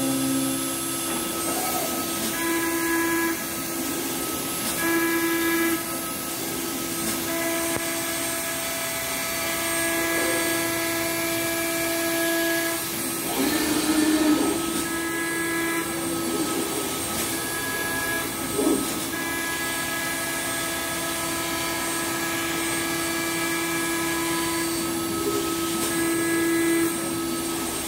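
Five-axis CNC wood router at work: the spindle and axis drives run with a steady whine of several high tones over a hiss, with a louder rasp of the cutter in the wood about halfway through.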